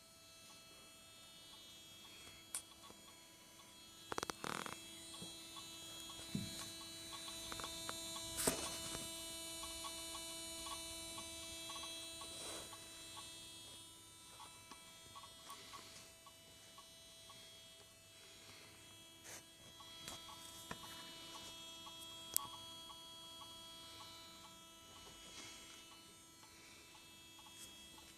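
Volkswagen Golf Mk5 2.0 SDI diesel engine running, heard as a faint steady hum of several constant tones with scattered light clicks and ticks.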